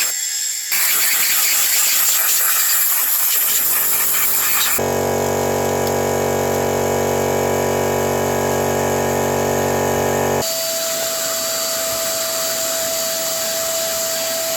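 Loud motor-driven machine noise, like a power tool or shop vacuum running: a steady hiss, then a steady many-toned hum from about five seconds in, switching abruptly about ten seconds in to hiss with a steady whine.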